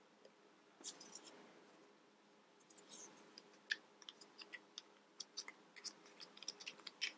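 Faint small plastic clicks and scrapes of a Play-Doh toy syringe being handled, its plunger pushed into a barrel packed with dough. A brief soft rustle about a second in, then scattered clicks that grow more frequent.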